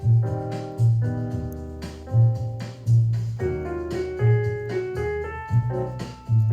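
Jazz piano music with a walking bass line, played as background music.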